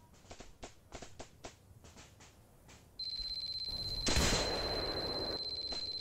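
Edited-in sound effects: a run of sharp, irregular clicks, then a steady high electronic tone with hiss that starts suddenly about three seconds in, with a louder burst of noise about a second later.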